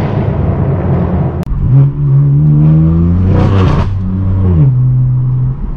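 Straight-piped BMW M4 F82 twin-turbo inline-six with an AWE Track exhaust, heard loud from inside the cabin as the car accelerates. Its pitch rises and holds, turns rough and raspy about three and a half seconds in, then drops near the end as the revs fall.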